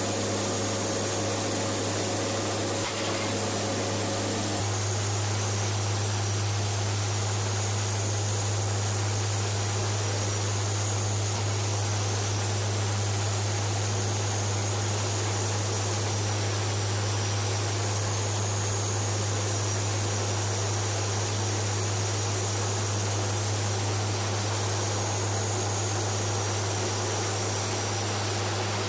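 Steady cabin drone of a WC-130J Hercules turboprop in flight: a deep constant hum under a broad hiss of engine and airflow noise, shifting slightly about four seconds in.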